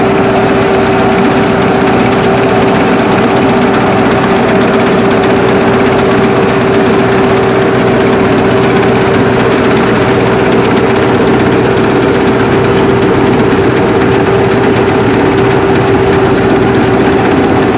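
Sakpattana SS-300 Black Bird combine harvester's five-cylinder, 170 hp engine and machinery running at a constant speed: a steady drone with a constant whine over it.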